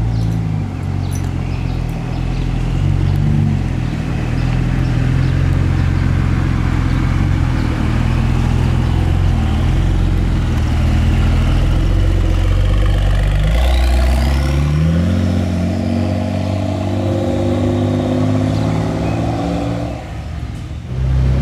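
Gemballa Marsien's flat-six engine (a modified Porsche 911 Turbo S) running at low speed as the car drives off, then revving up with a quickly rising pitch about two-thirds of the way through.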